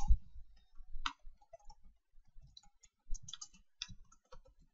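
Computer keyboard keys clicking in irregular, scattered keystrokes as code is typed.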